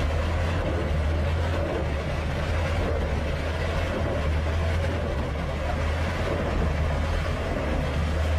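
An engine running steadily with a constant low drone and no change in speed.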